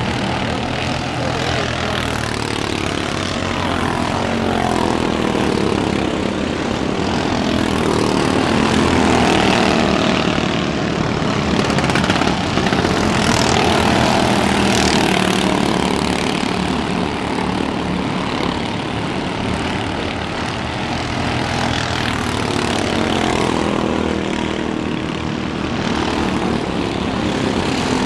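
Several stock car racing engines running laps on a paved oval, a continuous engine noise whose pitch rises and falls as the cars pass and accelerate through the turns.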